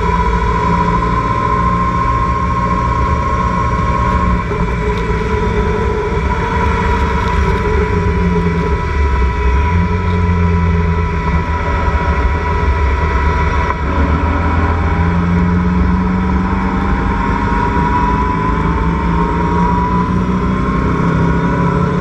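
Locost open-wheel race car's engine running hard at racing speed, heard from the open cockpit with wind and wet-road noise around it. Its pitch dips briefly about halfway through, then rises steadily as the car accelerates.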